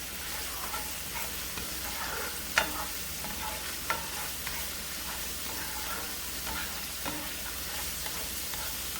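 Food sizzling in hot oil in a frying pan, with a utensil knocking and scraping against the pan a few times; the sharpest knock comes about two and a half seconds in.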